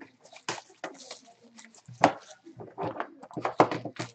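Foil pack wrappers and card packaging crinkling and rustling as they are handled, in uneven bursts with louder crackles about two seconds in and again near the end.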